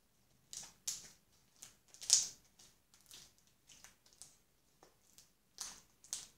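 White-glue slime being stretched, folded and squeezed in the hands, giving irregular crackling clicks and pops, about two a second, the loudest about two seconds in.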